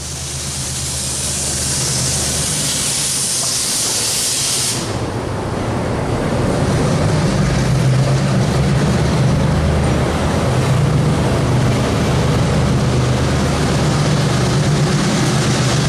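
EMD SW1200 switcher's diesel engine running, a steady low drone that grows louder over the first several seconds as the locomotive approaches. A loud hiss sits over it and stops abruptly about five seconds in.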